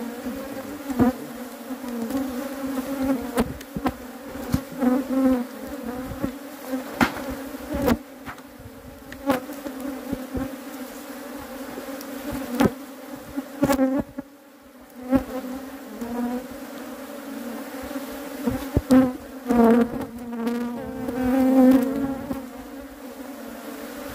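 Western honeybees (Apis mellifera) buzzing in a dense, steady hum around an opened hive. Now and then single bees pass close, their hum wavering up and down in pitch, most of all near the end, over frequent sharp clicks and knocks.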